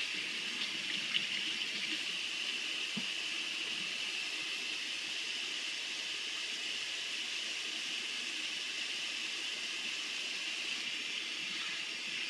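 Kitchen faucet running steadily into a stainless steel sink as hands are washed under the stream, with a couple of light knocks.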